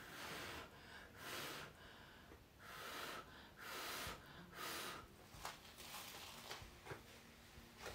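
Five short puffs of blown air in the first five seconds, each about half a second long, with a few faint clicks afterwards.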